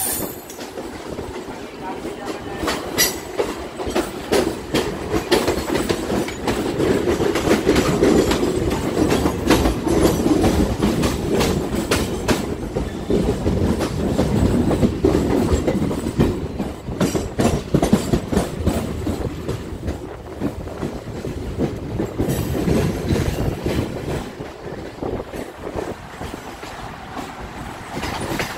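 Rolling trains on adjacent tracks: a steady rumble of carriages with wheels clattering over rail joints in a run of sharp clicks, heard close up from an open train door.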